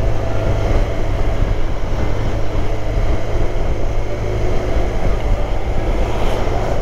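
Motorcycle engine running steadily at cruising speed, with a constant rush of wind and road noise over it.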